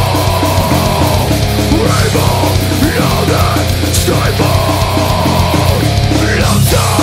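Loud heavy metal music.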